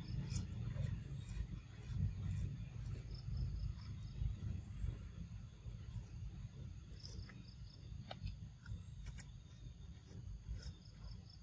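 Insects chirping in short, repeated high ticks over a low, steady rumble.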